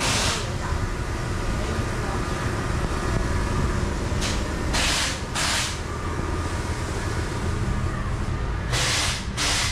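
Short hisses of compressed air, mostly in pairs about half a second apart, over a steady low machine hum.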